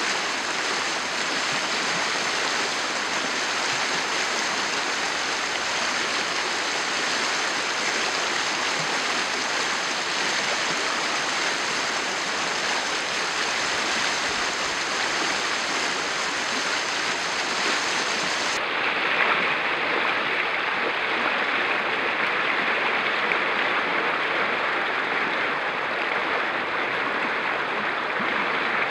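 Muddy floodwater rushing down a channel, a steady roar of moving water. About two-thirds of the way through the sound changes abruptly to a nearer, harsher rush.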